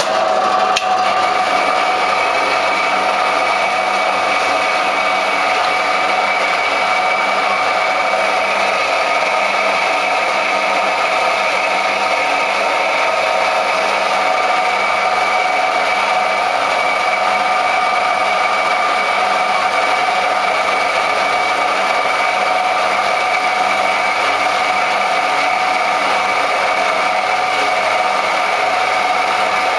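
Small metal-cutting bandsaw running steadily, its motor and moving blade giving a constant hum and whine. A higher tone joins about a second in.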